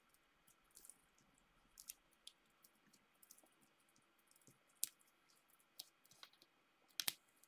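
Near silence with scattered faint clicks and taps of card and paper being handled, as the backing is peeled off adhesive foam dimensionals; a close pair of sharper clicks comes near the end.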